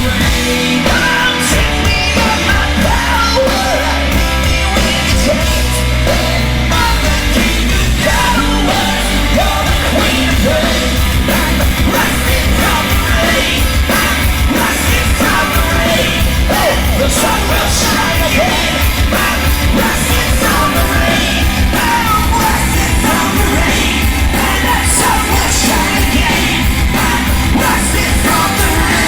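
Live punk rock band playing loudly, with shouted singing over the band.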